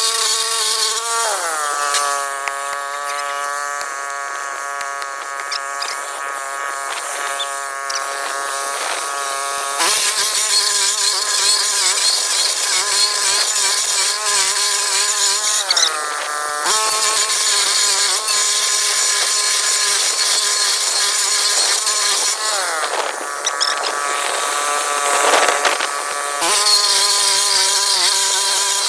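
Walk-behind stump grinder's engine and cutting wheel running at high speed while grinding a stump, a steady whine over a hiss of flying chips. The pitch sags three times as the wheel bites into the wood, the first time about a second in and lasting several seconds, then climbs back.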